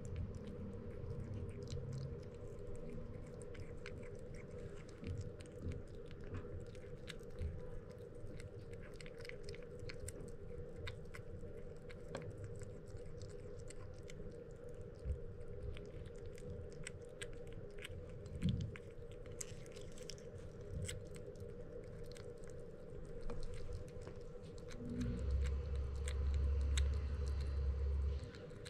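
Small wet clicks and smacks of a kitten chewing and licking soaked kibble, still not chewing well, over a steady low hum. Near the end, a louder low rumble for a few seconds.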